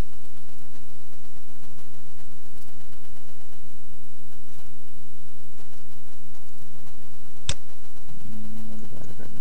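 Steady electrical mains hum made of several fixed low tones. A single sharp click comes about seven and a half seconds in, and a few short stepped tones, like the start of music, begin near the end.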